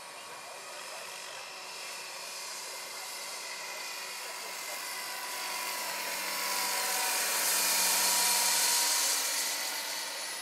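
Large electric scale model helicopter (Vario SA-341/342 Gazelle) in flight: a steady whine from its electric drive with the rotor's hiss, growing louder as it passes, loudest about eight seconds in, then fading.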